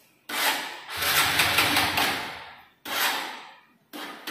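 Motorcycle electric starter cranking the cold engine in three presses, the first about two and a half seconds long and the next two shorter, each starting sharply and fading, without the engine catching. The battery is flat.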